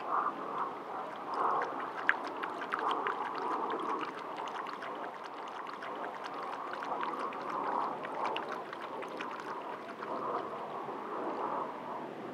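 Coyote lapping water from a bowl: a run of quick, wet clicks and splashes through the middle, easing off near the end, over a steady rushing background hiss.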